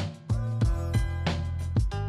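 Background music with a drum beat over a held bass line.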